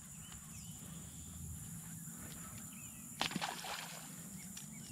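Quiet outdoor ambience with faint chirps, broken by one sharp knock and a brief rattly splash about three seconds in.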